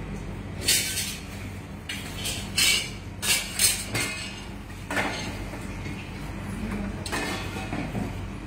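Kitchen handling sounds: several brief clatters and rustles of steel dishes and utensils, over a steady low hum.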